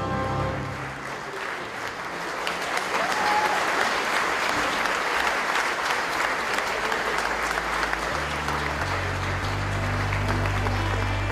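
Crowd applauding. Background music with a low bass line comes in underneath about eight seconds in.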